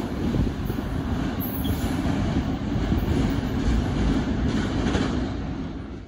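Double-stack intermodal container train rolling away on the rails: a steady rumble of wheels and cars. It fades out quickly near the end.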